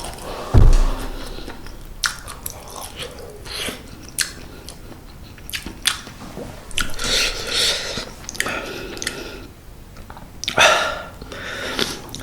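Close-up eating sounds: a person chewing mouthfuls of instant mala tang noodles, with many wet mouth clicks and smacks, and a low thump about half a second in.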